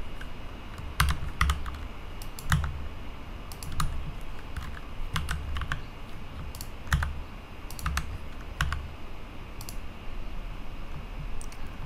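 Computer keyboard keys pressed one at a time at irregular intervals, about a dozen sharp clicks each with a dull thump, as single shortcut keys (G, S, numeric keypad) are entered.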